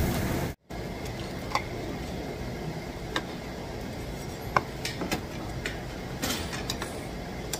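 Metal chopsticks and tableware clicking now and then against bowls and dishes, a few sharp clinks about a second apart over steady restaurant background noise. The sound cuts out briefly about half a second in.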